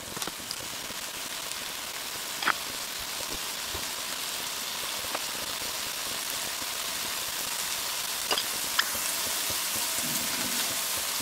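Chicken breast cutlets sizzling in butter in a frying pan, browning over high heat. The sizzle grows slightly louder, with a few short clicks over it.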